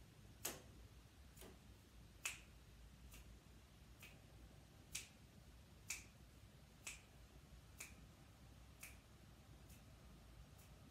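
A series of faint, sharp clicks, about one a second and slightly uneven in strength, over near silence.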